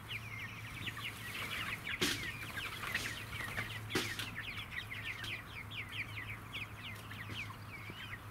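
A flock of five-week-old chicks peeping continuously, many short falling peeps overlapping. A few sharp knocks sound about two, three and four seconds in.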